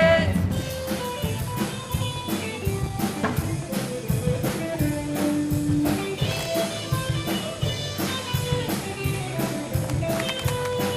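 Instrumental rock band music with drum kit and guitar, a steady quick drum beat and no singing.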